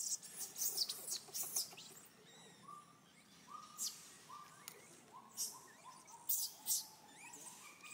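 Baby macaque screaming in short, shrill, repeated squeals, densest in the first second and a half and again near the end, with a run of short, lower rising notes in between. These are distress cries of a baby kept from nursing.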